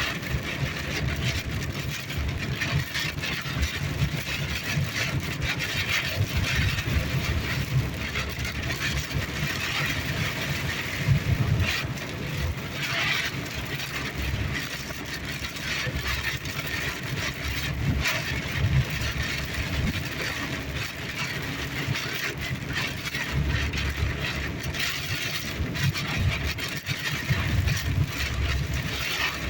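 Cabin noise of a car driving through a heavy rainstorm: a steady road and engine rumble under the hiss and patter of rain on the body and windscreen.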